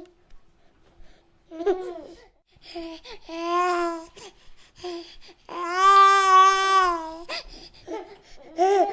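Baby cooing and babbling in short vocal sounds, with one long, drawn-out coo about halfway through.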